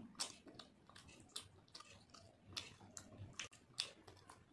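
Faint close-up chewing of a mouthful of rice, with scattered wet mouth clicks and smacks at an irregular pace.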